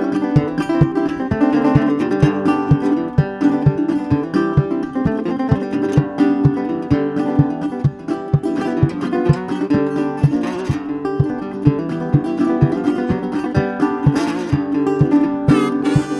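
Blues played fingerstyle on a resonator guitar, with a steady low beat about two to three times a second under the picked melody.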